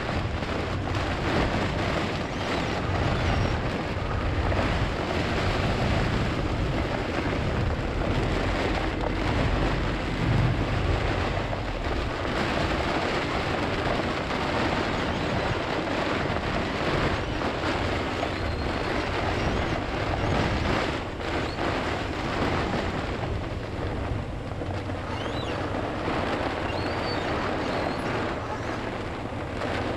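Microburst storm wind gusting hard, rumbling against the microphone, with a steady hiss of wind-driven rain and spray.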